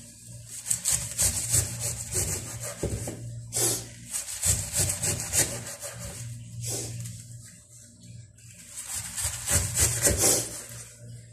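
Kitchen knife sawing through a raw head of green cabbage, crisp crunching strokes in several runs as the leaves are cut and pulled apart.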